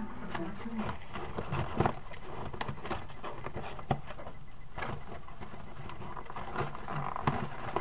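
Scattered light clicks and rustles of a sealed box of trading cards being opened and its foil-wrapped packs handled.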